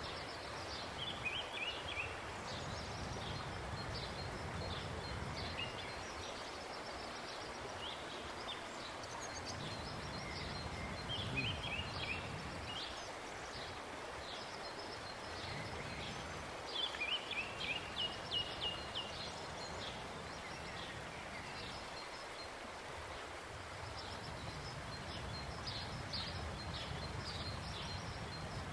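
Outdoor ambience: small birds chirping in short runs of rapid high notes, several times, over a steady low background rumble.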